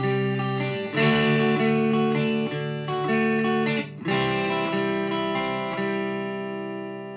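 Electric guitar played clean through a Vox AC10 amp, with chords picked and strummed. After a short break near four seconds, a chord rings out and slowly fades.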